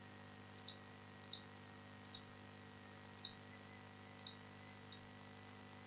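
Faint computer mouse clicks, about six at uneven intervals, over a low steady electrical hum.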